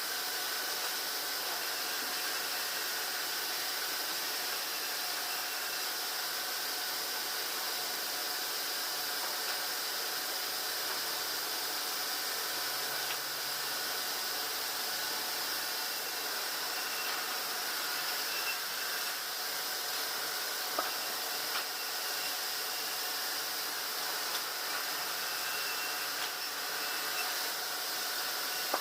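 Sawmill machinery running: a continuous steady hiss with a few faint steady tones, and a few light clicks in the second half.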